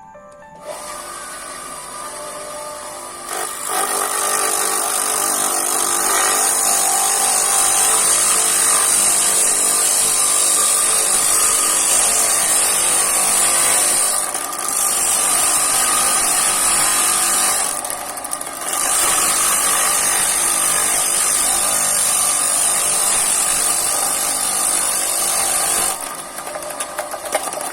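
A homemade grater driven by a reused water-pump electric motor starts up with a steady hum. Then comes a loud, continuous rasping as hard young guava is pressed against the spinning grater blade. The grating eases briefly twice and falls away near the end, leaving the motor running.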